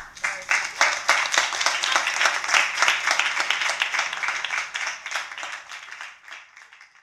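Small audience applauding, starting suddenly and fading out over the last couple of seconds.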